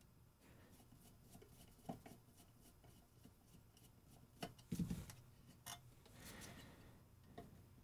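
Faint clicks and light scraping of a slotted screwdriver working small slot-head screws on a metal attenuator housing, a few scattered strokes with a small cluster a little past the middle.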